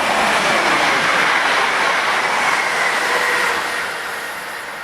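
Class 730 electric multiple units passing through the station, a loud rush of wheel and rail noise that swells and then fades away from about three and a half seconds in.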